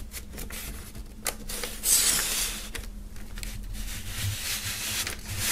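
Vinyl LPs in white paper inner sleeves sliding into a cardboard album jacket: paper and card rustling and scraping, with a few light ticks near the start and the loudest slide about two seconds in.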